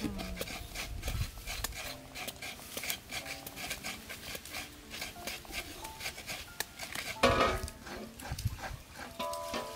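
Scratchy rubbing and scraping from hand food preparation, with scattered short animal calls and one louder call about seven seconds in.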